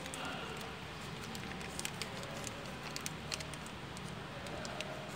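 Clear plastic parts bag crinkling in the hands, with many small sharp crackles, over a steady low hum.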